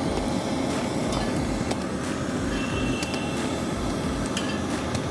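Steady roadside street noise with a rumble of traffic, and a few sharp clicks of a metal spatula on the iron griddle. A short high steady tone sounds about two and a half seconds in.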